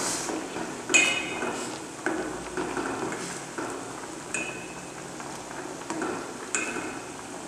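A ladle stirring moong dal and water in a stainless steel pot, with a swishing stir and several knocks against the pot that make the steel ring briefly, the loudest about a second in.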